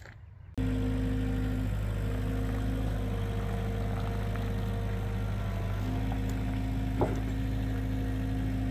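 Yellow loader's engine running steadily as it lifts a log off a trailer by a sling. It starts abruptly about half a second in, carries a steady hum that drops out and returns, and has a single sharp knock about seven seconds in.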